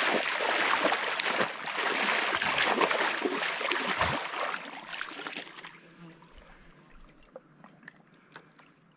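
Water splashing and sloshing as large peacock bass are let go and kick away from the anglers' hands, fading out after about five and a half seconds into a few small drips.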